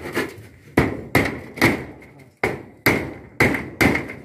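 Hammer blows driving a nail through corrugated metal roofing to fix a satellite dish bracket: about eight sharp strikes, roughly two a second, each with a brief metallic ring from the roof sheet.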